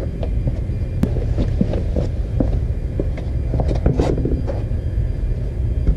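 Hand tools being gathered and handled: scattered small clicks and knocks over a steady low rumble.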